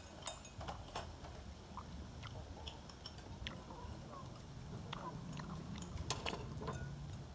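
Scattered light clicks and clinks of spoons and bowls at a meal, with faint chewing, over a low steady hum.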